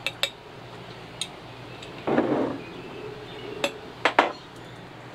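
A metal spoon and a glass jar clinking as they are handled and set down: a couple of sharp clinks at the start, another about a second in, a short scrape or rustle about two seconds in, and three more clinks near the end.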